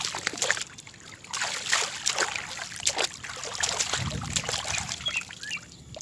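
Water splashing and trickling irregularly as a freshly caught mud crab is rinsed by hand.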